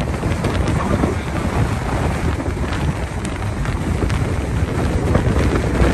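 Wind buffeting the microphone over the road noise of a moving car, a steady rushing roar with uneven gusts.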